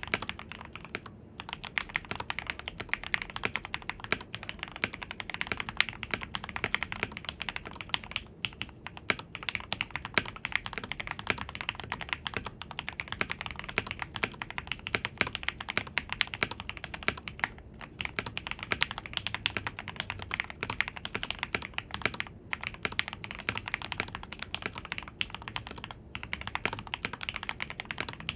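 Royal Kludge RK84 mechanical keyboard, foam-filled, with lubed Gateron Milky Yellow linear switches and PBT keycaps, being typed on fast and continuously: a dense stream of keystrokes broken by a few brief pauses.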